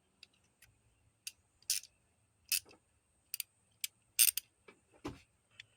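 A 3/8" ratchet with a T27 Torx bit clicking in short, irregular strokes while it snugs a coil pack hold-down bolt, with a few scraping clicks of the tool against the bolt. The loudest clicks come about four seconds in.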